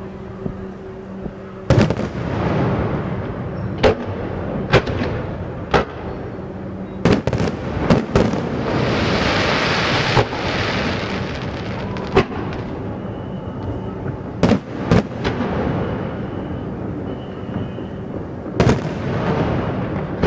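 Fireworks going off: about a dozen sharp bangs at irregular intervals, each followed by a rolling echo, with a burst of dense crackling about eight to ten seconds in.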